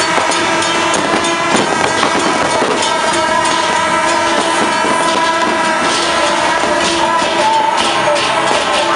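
Loud temple-festival music: held melody notes over dense, fast clashing percussion.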